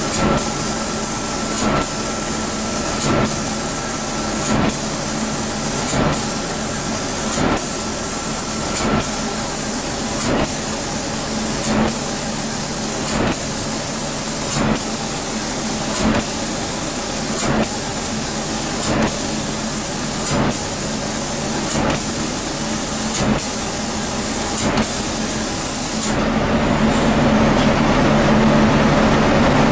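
Spray gun on a 5-axis CNC spray-painting machine hissing as it atomises paint onto a wooden door, with a brief break about every second and a half. The spraying stops about four seconds before the end, and a steady machine hum carries on.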